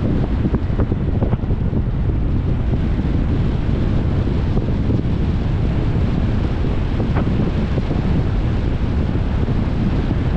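Steady wind rumble on the microphone over road noise from a moving 2021 Jeep Compass.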